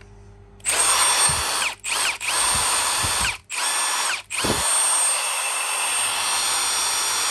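Milwaukee M18 cordless impact driver triggered with no load, its motor and gears whining in four runs separated by short stops, the pitch dropping and climbing again at each stop and restart.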